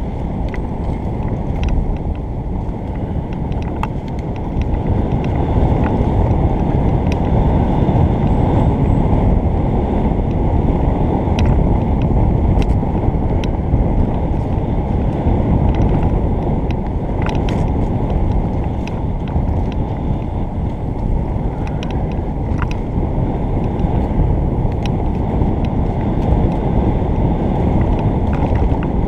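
Wind buffeting a helmet-mounted action camera's microphone over the rumble of mountain-bike tyres rolling on a dirt forest trail, with scattered sharp clicks and rattles from the bike.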